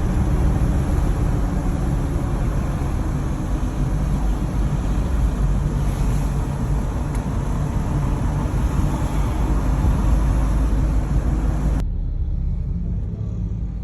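Steady low rumble of a moving road vehicle, engine and road noise, with a hiss over it. Near the end the hiss cuts off suddenly, leaving only the rumble.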